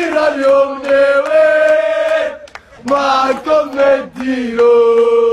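Men's voices chanting in unison, in drawn-out phrases with long held notes and short breaks between them.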